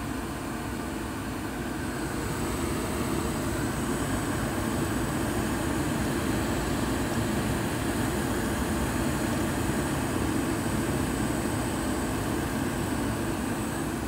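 ICP Comfortmaker two-stage gas furnace running with its burners lit and its inducer motor going: a steady rush that grows slightly louder about two seconds in. It is still on low fire when it should have gone to high stage, the sign of a gas valve that the technician judges no good for stage two.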